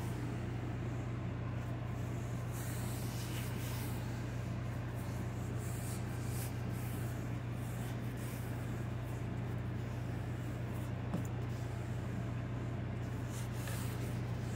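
A steady low hum, with faint brief rubbing sounds a few times as hands round a soft ball of bread dough on a floured marble slab.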